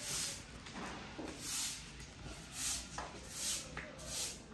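A short stiff stick broom swishing across a concrete floor in a series of quick strokes, roughly one a second.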